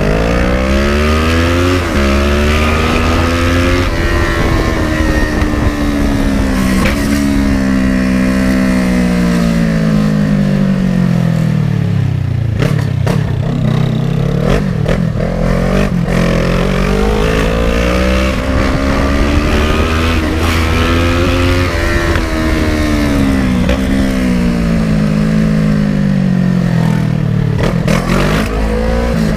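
Kawasaki ER-6n motorcycle's 650 cc parallel-twin engine under way. The revs climb, with a brief dip at a gear change near the start, then sink slowly over several seconds as the throttle is closed. This happens twice, and the revs climb once more near the end.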